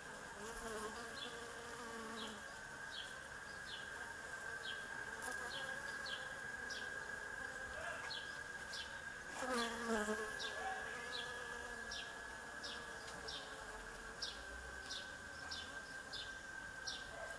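Bees buzzing around a flowering tree, one flying close past about ten seconds in with a louder hum that drops in pitch. Behind it run a steady high whine and a short high chirp repeating about once or twice a second.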